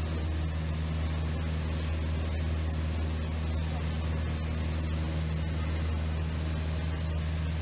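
Small plane's engine and propeller droning steadily in cruise, heard from inside the cockpit as an even low hum with a noisy rush of air over it.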